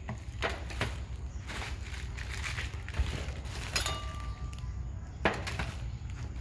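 Plastic packaging crinkling and a few sharp clinks and knocks as plastic-wrapped stainless steel kitchenware is lifted out of a cardboard box and set down on a stainless steel table, over a steady low rumble.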